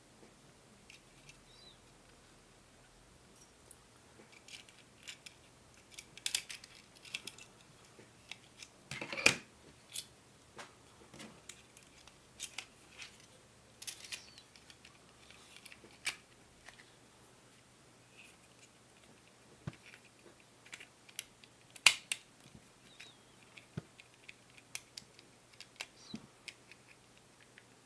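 Umarex Walther PPK/S spring airsoft pistol being taken apart by hand: its parts click and clatter in scattered sharp clicks, with two louder knocks about nine seconds in and about twenty-two seconds in.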